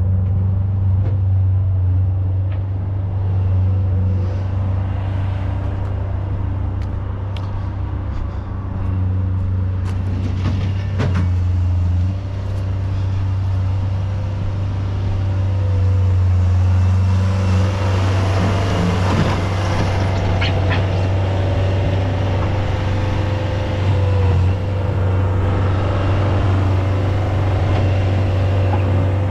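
Diesel engine of heavy construction equipment running steadily while spreading asphalt millings, with a few knocks and clatters about ten seconds in and again near the middle.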